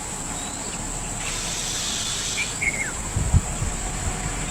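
Outdoor ambience: a steady high hiss, a short falling chirp about two and a half seconds in, and a few low thumps just after three seconds.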